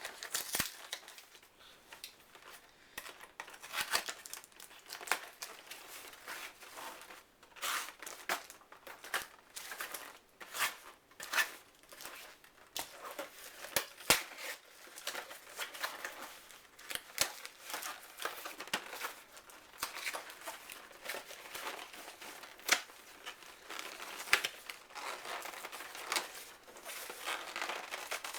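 Packaging crinkling and rustling in irregular crackles as the contents of a toy blaster box are unwrapped and pulled out.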